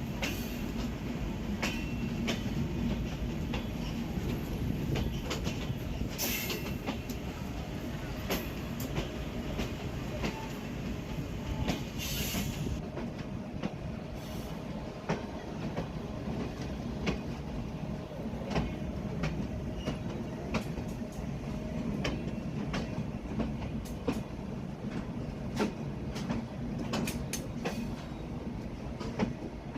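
Broad-gauge passenger train running along the track: a steady low rumble with a rapid, uneven run of wheel clicks over the rails. Two brief high hissing bursts come about a third of the way in and again shortly after.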